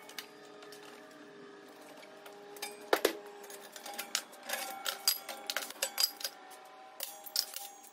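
Steel clamps, locking pliers and an adjustable wrench clicking and clanking against sheet steel and a steel welding table as the sheet is clamped for bending, with one sharp clank about three seconds in.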